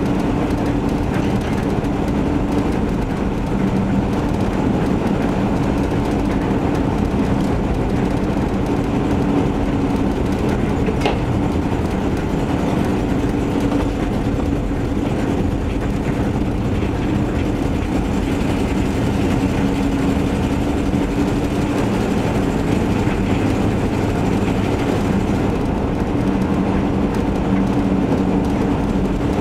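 1977 Chevy van driving, its engine and leaking exhaust making a steady drone. The leak comes from a failed exhaust donut gasket and rusted-through mufflers and tailpipe. A single faint tick about eleven seconds in.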